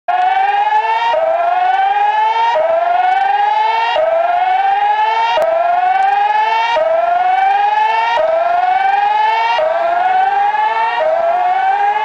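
Electronic tsunami-warning siren sounding a repeating rising whoop: each tone climbs in pitch for about a second and a half, drops back abruptly and climbs again. This is the alert tone that comes before the spoken order to evacuate to a safe zone.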